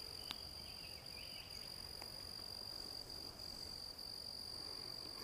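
Faint, steady high-pitched trill of crickets, unbroken over a low background hiss, with one small click shortly after the start.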